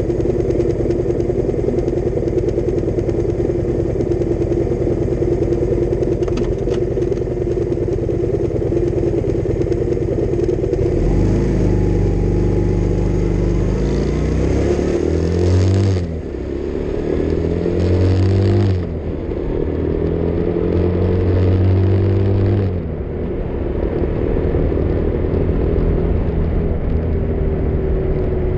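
Motorcycle riding at a steady cruise with wind rush at first. About ten seconds in, the engine pulls harder, its pitch rising through the gears with three upshifts, each a brief drop in pitch and level, before it settles at a steady speed near the end.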